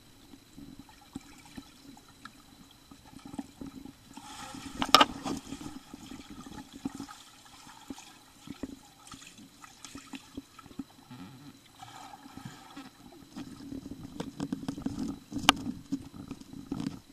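Pool water heard from under the surface: muffled sloshing and bubbling as a child kicks in the water, with scattered sharp clicks, two louder ones about five seconds in and near the end.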